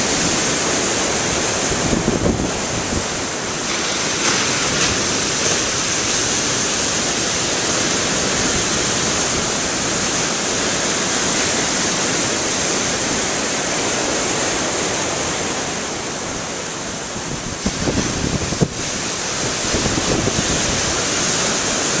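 Large storm waves breaking on a rocky shore: a continuous wash of crashing surf and churning foam. Wind buffets the microphone in low rumbles about two seconds in and again near the end.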